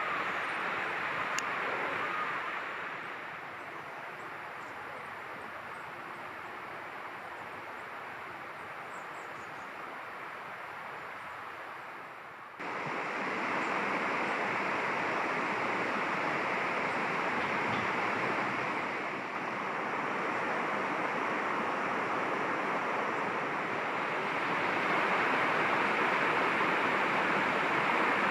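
Steady rushing of flowing water, like a stream, with a few faint short bird calls in the first couple of seconds. The rush steps up abruptly in loudness about halfway through and again near the end.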